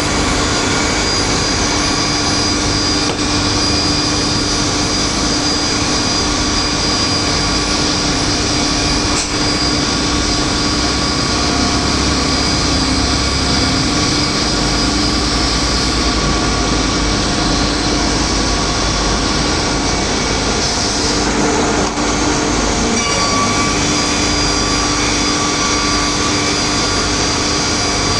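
Multi-rip saw with its automatic panel feeder running: a loud, steady machine noise with several steady whining tones over a low rumble, the mix of tones shifting a little about two-thirds of the way through.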